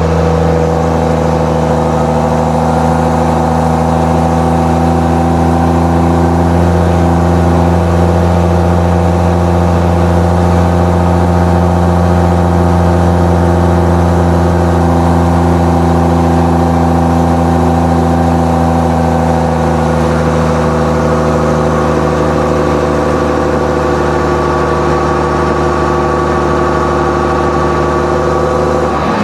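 Dodge Cummins inline-six turbo diesel running steadily at a constant engine speed, a loud, even drone with almost no change in pitch.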